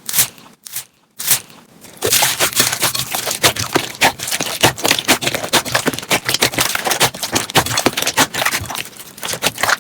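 Slime being squished, with a few separate sharp pops and then, from about two seconds in, a dense run of quick crackling clicks.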